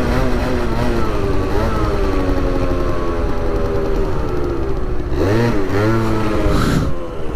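Small scooter engine running at steady part throttle, its note sagging slowly, then a quick drop and rise in revs about five seconds in.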